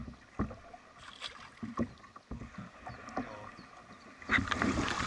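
Paddling a small boat on a river: a few light, irregular knocks and drips of the paddle against the hull, then a louder rushing noise from about four seconds in.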